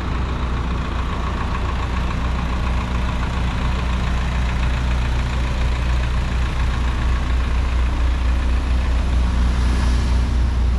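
Truck engine idling steadily close by: a low, even hum, with street traffic behind it.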